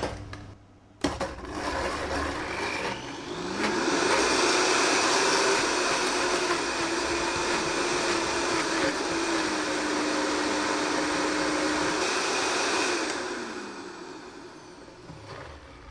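Vitamix power blender switched on with a click, its motor ramping up to high speed and running steadily for about nine seconds while puréeing cooked beetroot into a sauce, then winding down near the end as it is switched off.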